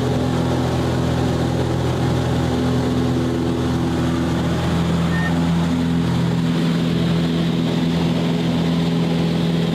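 Cessna 185's six-cylinder piston engine and propeller running at full takeoff power, heard from inside the cabin as a steady drone. The tone shifts slightly about six seconds in.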